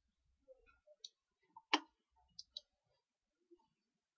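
A few faint, sharp computer mouse clicks at irregular intervals, the loudest about one and three-quarter seconds in.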